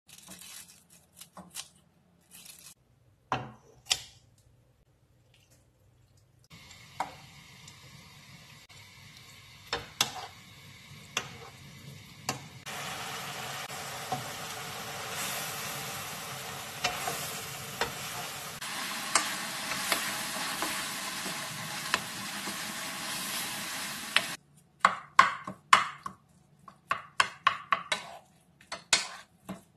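Kimchi frying in a pan: a few sharp snips and taps at first, then a steady sizzle that starts about six seconds in and grows louder about halfway through, stopping abruptly. Near the end, a quick run of wooden-spoon scrapes and knocks against the pan as rice is stirred into the kimchi.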